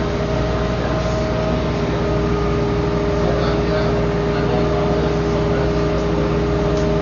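A machine engine running steadily with a constant hum.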